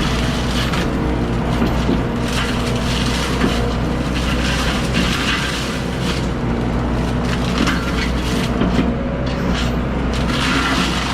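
A diesel excavator running steadily while brush and branches crack and are crushed, with repeated bursts of snapping wood over the engine hum.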